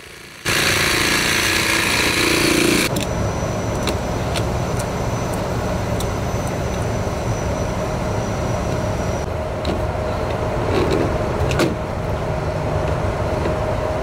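A cordless power tool runs for about two seconds, half a second in. A steady engine rumble with a constant hum follows, under a few light clicks and knocks.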